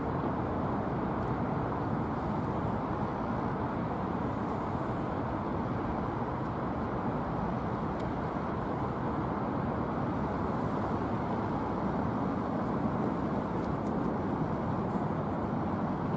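Steady, even low rumbling roar of distant engine noise, with no rise or fall in level.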